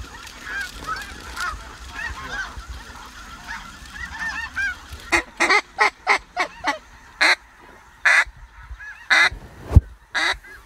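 Snow goose calls: a far-off chorus of many short high yelps, then from about halfway a run of about ten loud, sharp calls close by. A sharp thump comes near the end.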